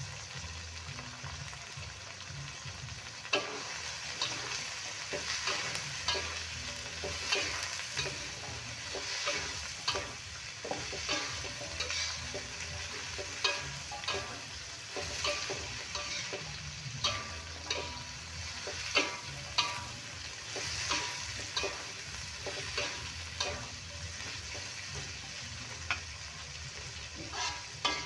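Carrots and green beans sizzling in an aluminium wok as they are stir-fried, with a metal spatula scraping and knocking against the pan about once a second from a few seconds in.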